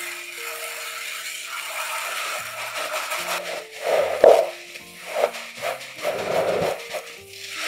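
Background music of held melodic notes, with kitchen handling noises such as scraping and rattling laid over it and one sharp click about four seconds in.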